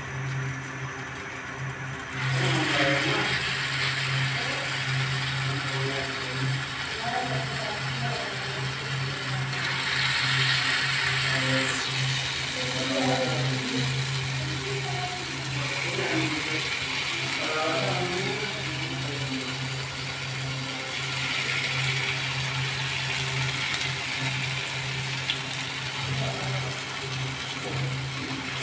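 Lumps of pakora batter frying in hot oil in a pan: a dense, steady crackling sizzle that starts about two seconds in as the first batter goes into the oil. A steady low hum runs underneath.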